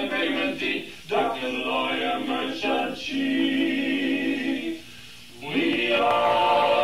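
Voices singing a cappella in close barbershop-style harmony. The phrases break briefly about a second in and again about five seconds in, with a long chord held in the middle.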